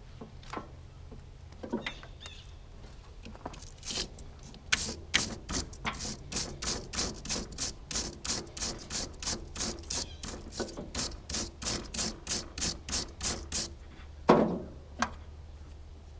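A hand tool worked in a steady rhythm of sharp clicks, about three a second for roughly ten seconds, then one loud knock near the end.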